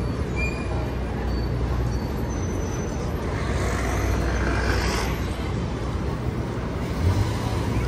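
City street traffic: a steady low engine rumble from passing vehicles, with a hiss that builds and fades about halfway through.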